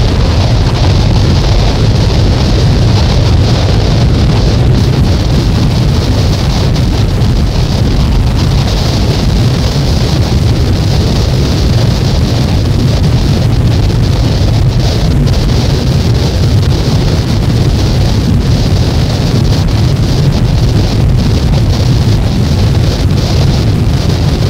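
Loud, unchanging wall of dense noise from a cassette album track, heavy at the bottom with a hissing band up high and no beat or melody.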